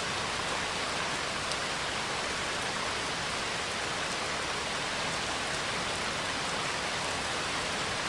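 Heavy rain falling steadily on a surface: a constant dense hiss with faint scattered drop ticks.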